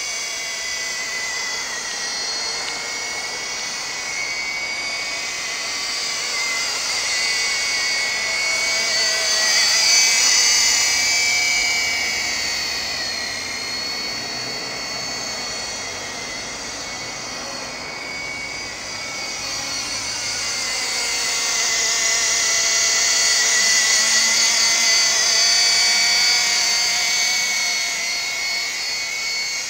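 Radio-controlled model helicopter in flight: a steady high whine of its motor and rotor made of several tones that rise and fall in pitch as it manoeuvres, louder about ten seconds in and again in the last third as it passes closer.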